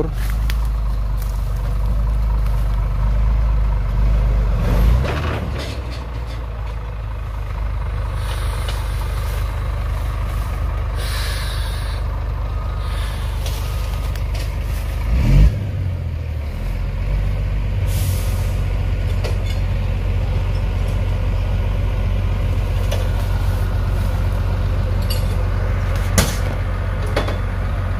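Scania heavy-haul truck's diesel engine running steadily at low speed as it drags a loaded low-bed trailer around a tight bend, its note shifting a few times. Short hisses of air sound now and then, and there is one sharp knock a little past halfway.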